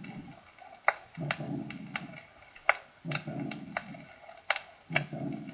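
Recorded heart sounds of aortic insufficiency of syphilitic origin, slowed to about 40 beats a minute. Each beat carries a short, rough systolic murmur together with an early diastolic murmur, heard as a rough low rumble of under a second that recurs about every two seconds, with sharp clicks between the beats.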